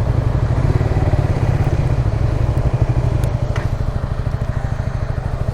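Motorcycle engine running at a steady idle, its exhaust giving an even, rapid low pulsing, with two faint clicks a little past the middle.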